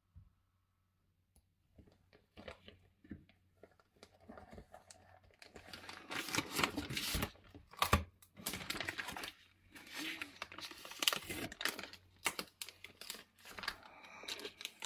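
Crinkling and rustling of sheets being handled, in irregular crackly bursts that start faintly about two seconds in and grow louder and busier from about halfway.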